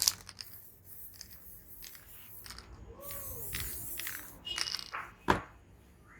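Spray-painting work sounds: a series of sharp clicks and knocks with some scraping, a short hiss about three seconds in, and one loud click a little after five seconds.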